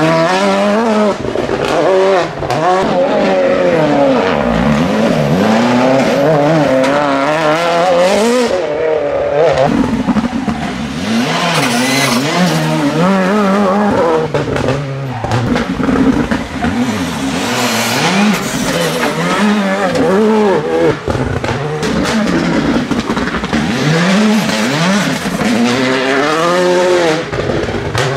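R5 rally cars (a Volkswagen Polo and Škoda Fabias), one after another, braking into a hairpin and accelerating away, their turbocharged engines revving up and down through the gears.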